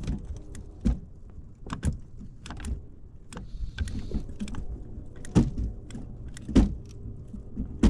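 Small fishing boat working free of a log: an electric trolling motor hums steadily while the hull and motor knock and bump against the wood, with about half a dozen irregular sharp knocks.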